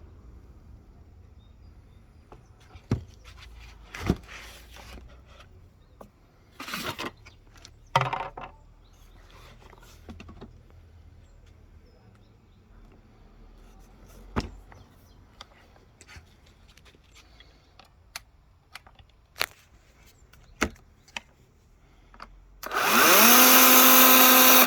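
Scattered clicks and knocks of handling, then near the end a Parkside 20 V cordless chainsaw's electric motor spins up with a quickly rising whine and runs steadily at full speed.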